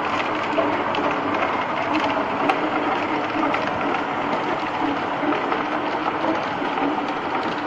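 Ice-making machine running: a steady mechanical drone with a wavering hum and frequent small clicks and rattles.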